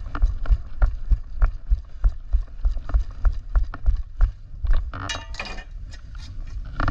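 Footsteps on tarmac with gear jostling, about three to four thumps a second, and small clicks throughout. A short burst of voice comes about five seconds in.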